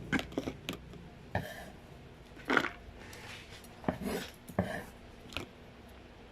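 Kitchen utensils and dishes being handled: about ten irregular knocks and clatters with a few short scraping sounds.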